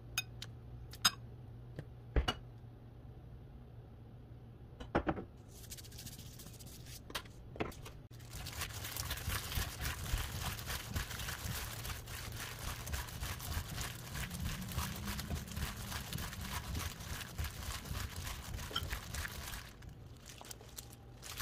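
A hand in a disposable plastic glove tossing cut cucumber chili peppers with seasoning paste in a bowl: the glove crinkles and the peppers squish and rustle continuously from about eight seconds in, stopping near the end. A few light clicks come before it.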